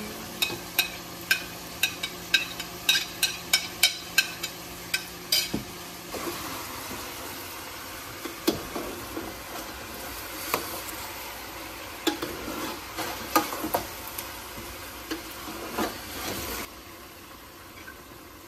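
Spices and ginger-garlic paste sizzling as they fry in a pan while a metal spoon stirs. A run of quick clicks of the spoon against the pan comes over the first five seconds, and the sizzle eases near the end.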